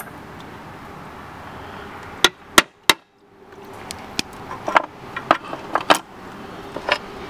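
Cut slices of rock being handled and set down on a tile saw's metal table: three sharp clacks about two to three seconds in, then lighter scattered clicks.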